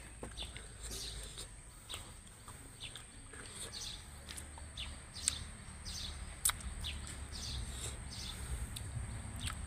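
Small birds chirping repeatedly in short high chirps, with a few sharp clicks in between.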